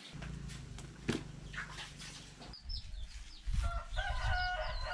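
Fowl calling in drawn-out, steady-pitched notes over the last second and a half, above a low rumble. A few faint clicks come before it.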